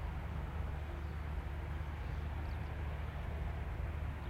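Diesel engine of a fuel tanker truck running steadily as the truck drives slowly past at a distance, a low even rumble.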